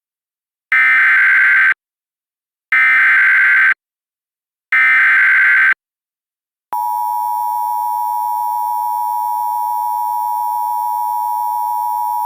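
Emergency Alert System tones: three one-second bursts of the SAME digital header, warbling data chirps about a second apart. A steady attention tone then starts just under seven seconds in, signalling that an urgent warning is about to be read.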